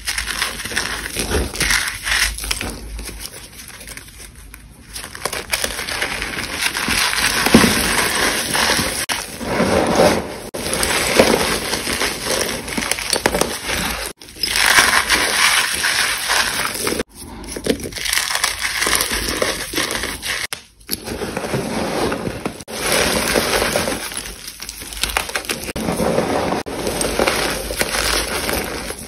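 Chalk, reformed chalk blocks and school chalk sticks, being crushed and crumbled by hand: a dry, gritty crunching that swells and fades in bursts and breaks off abruptly several times.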